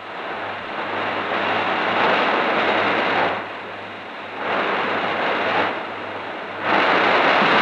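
Loud, even rushing noise of the erecting shop as an overhead crane lifts a steam locomotive. It swells three times, each surge a second or so long.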